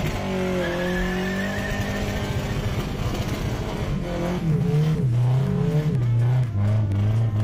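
Volvo 740's turbocharged 16-valve four-cylinder engine held at high revs while the rear tyres spin and squeal in a burnout attempt. About four seconds in the revs fall, and the engine is blipped up and down at a lower pitch.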